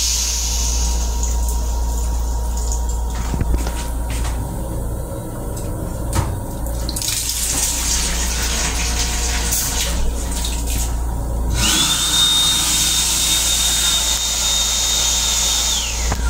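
An M7 railcar's restroom sink faucet runs into the basin for a few seconds. About two-thirds of the way in, the built-in hand dryer blows with a steady high whine for about four seconds and then cuts off. A steady low rumble lies underneath throughout.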